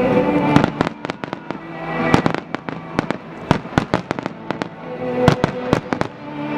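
Fireworks shells bursting in quick succession, dozens of sharp bangs and cracks packed close together, with show music playing underneath.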